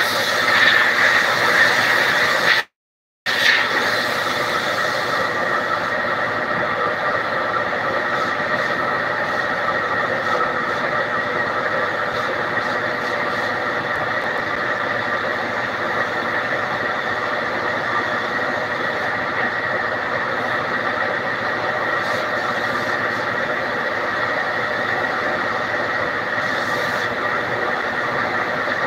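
Compressed-air spray gun spraying PU clear sealer onto wooden furniture: a steady loud hiss with a high whine in a few fixed tones. The sound cuts out for about half a second some three seconds in, then resumes unchanged.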